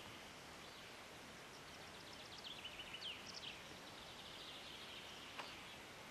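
Faint natural outdoor ambience, a steady soft hiss, with a short run of high bird chirps about two to three seconds in.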